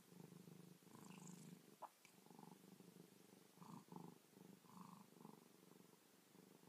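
Orange tabby cat purring faintly, a steady low rumble.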